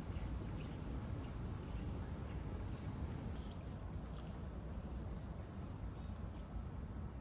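Insects trilling steadily, a constant high-pitched trill over a low background rumble, with three short high chirps about six seconds in.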